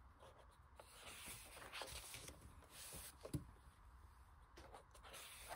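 Pages of a large-format art book turned by hand: faint paper rustling and sliding, with one light tap a little over three seconds in.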